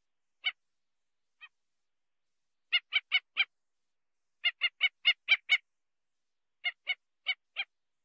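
White-backed stilt calling: short, sharp notes, two single calls first, then quick runs of four, six and four.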